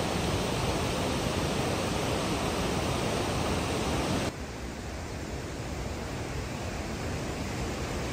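Steady, even rushing noise with no distinct events, which drops abruptly to a softer level about four seconds in.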